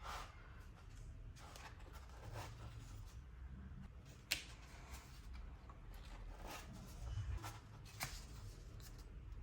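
Soft handling of merchandise packaging and paper items, with light rustles and taps, a sharp click about four seconds in and a smaller one near eight seconds.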